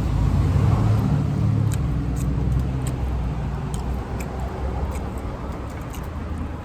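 A car engine running close by, a low hum that fades out about three seconds in, with small wet clicks of chewing over it.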